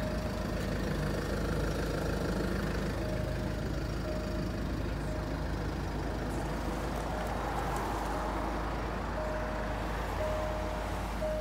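Jaguar car idling with a steady low hum. A single-tone warning chime beeps in short notes, sparse at first, then coming regularly and louder in the last few seconds.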